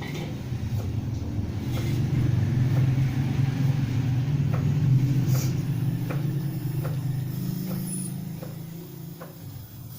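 A motor vehicle's engine rumble that swells to its loudest about halfway through and then fades away, as a vehicle passing by does. Faint light clicks are scattered over it.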